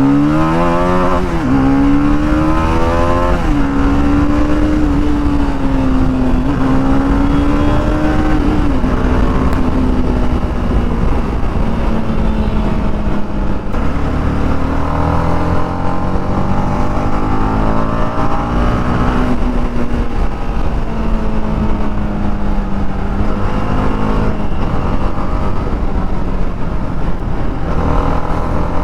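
TVS Apache RR 310's single-cylinder engine through its stock exhaust, heard from the rider's seat: it revs up hard with two quick upshifts in the first three or so seconds, then holds a steady cruise with the engine pitch drifting slowly up and down.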